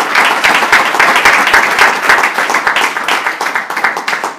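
Audience applauding: many hands clapping densely together, easing slightly near the end.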